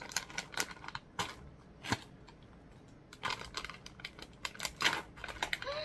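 Plastic snack packaging being handled and opened: a run of small, irregular clicks and crinkles.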